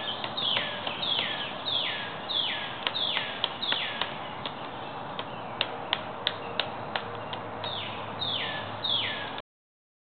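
Pileated woodpecker striking a fallen branch with scattered, irregular sharp knocks. Over it a songbird sings a series of whistled notes that slide downward, about two a second, in two bouts.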